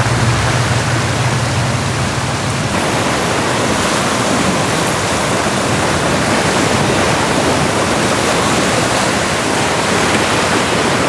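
Floodwater rushing in a strong current, a loud steady rush. A low steady hum runs under it for the first few seconds and stops about three seconds in.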